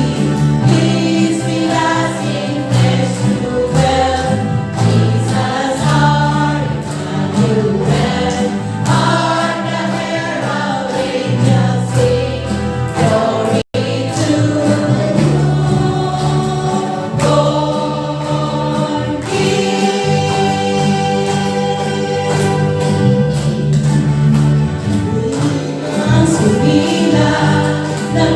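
Church choir singing a Christmas carol, the voices held over sustained low notes. The sound cuts out for an instant about halfway through.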